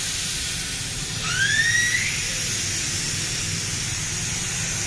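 Air hissing steadily out of a tube-type car tyre as it is deflated, with a brief rising squeal about a second in and a low hum underneath.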